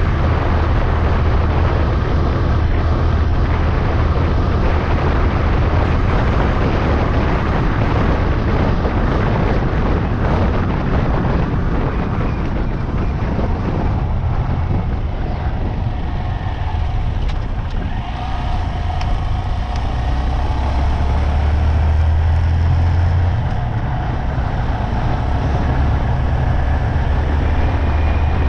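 Honda Monkey motorcycle riding along at road speed: a steady engine drone under rushing road and wind noise. The engine note eases off briefly about two-thirds of the way through, then picks up again.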